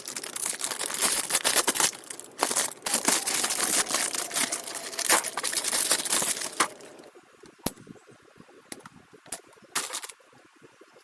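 Fine sandpaper scrubbing on small plastic model-kit parts: a dense, scratchy rasp for about the first seven seconds, then only a few light clicks of parts being handled.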